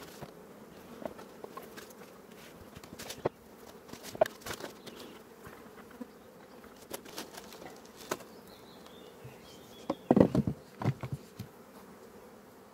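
Honeybees buzzing around an open hive, broken by scattered knocks and rustles as the hive is closed up with a foil insulation sheet. Near the end comes a cluster of louder thumps as the wooden hive lid is set down on the box.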